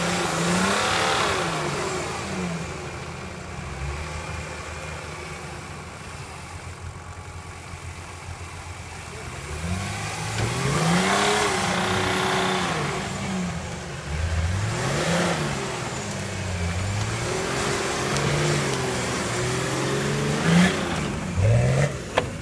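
Nissan Patrol 4x4 engine revving in repeated surges, its pitch rising and falling about four times with lower running in between, as the truck crawls up a muddy, rutted trail. A couple of sharp knocks come near the end.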